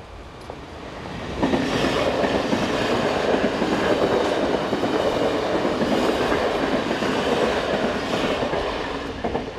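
NS double-deck passenger train passing at speed, a steady rush of wheels on rails. It builds over the first second or so and fades near the end.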